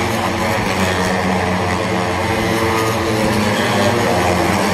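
Superbike racing motorcycles running at speed on the track, heard as a steady, continuous engine drone.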